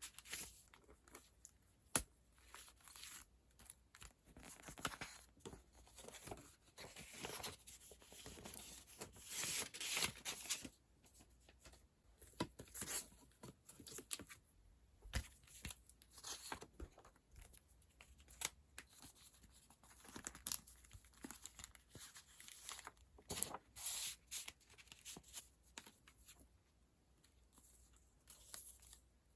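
Paper tickets and packaging being handled and sorted by hand: irregular rustling, crinkling and tearing, with a few sharp clicks.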